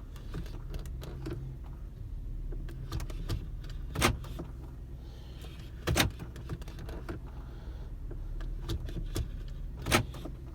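Steady low hum of a car idling, heard inside the cabin, with three sharp clicks spread through it and fainter ticks and handling noises in between.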